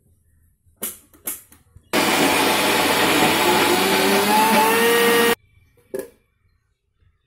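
Preethi mixer grinder running in one burst of about three and a half seconds, grinding soaked dal with chillies, ginger and garlic, then cutting off abruptly; its pitch rises slightly near the end. Two sharp clicks come before it and one after.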